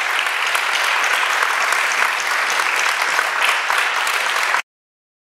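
Audience applauding, a dense steady clapping that cuts off abruptly about four and a half seconds in.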